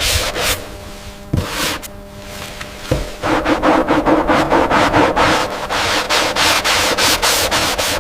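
Sandpaper rubbing on wood in quick, even back-and-forth strokes, growing louder about three seconds in.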